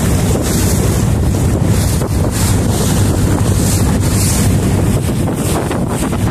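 Wind buffeting the microphone on a small river boat under way, with water splashing and rushing along the hull through choppy water.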